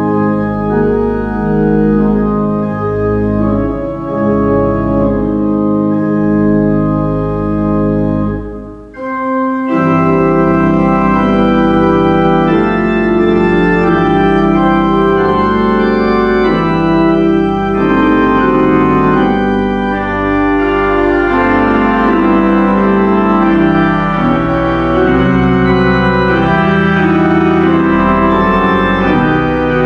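Church organ playing sustained chords over a deep pedal bass; the sound drops away briefly about nine seconds in, then comes back fuller, with the chords changing steadily.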